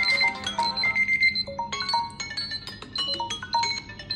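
Several smartphones' timer alarm tones ringing at the same time, their chiming electronic melodies overlapping into a dense jumble of notes.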